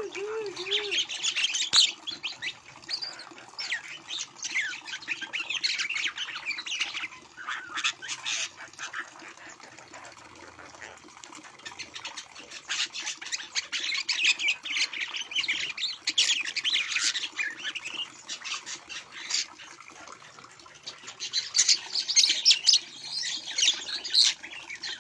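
Javan mynas making harsh chattering squawks in repeated bouts of several seconds, with short lulls between them, while they wait to be fed.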